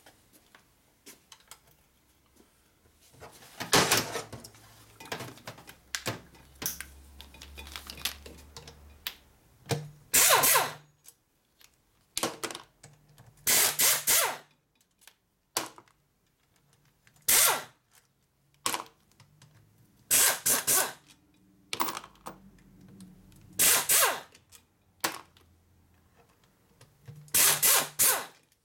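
Air tool fed by a coiled air hose spinning out the quarter-inch Allen bolts of a Harley Evo engine's rocker box, in about seven short bursts a few seconds apart.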